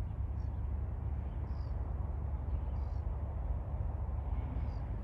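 Outdoor ambience: a steady low rumble, with faint short high bird calls repeating about once every second or so.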